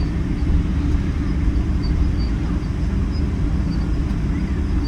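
Steady low rumble of a Boeing 777-300 airliner heard from inside the passenger cabin, with a faint steady high tone above it.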